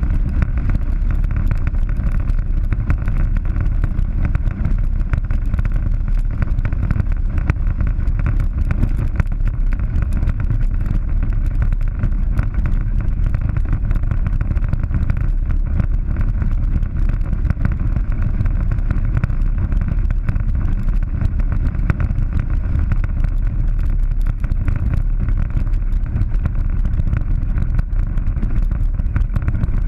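Polaris 900 side-by-side driving steadily along a gravel dirt track: engine and drive noise with an unchanging low rumble.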